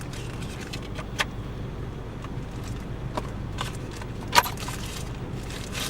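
A few sharp clicks and taps over a steady low hum, the loudest click about four and a half seconds in.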